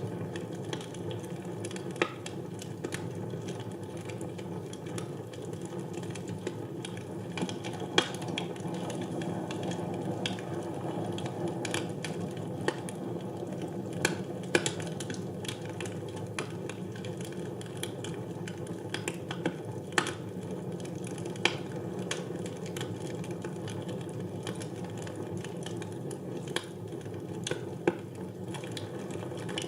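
Wood fire burning in a fireplace: a steady low rushing hiss with irregular crackles and pops, and a louder snap every few seconds.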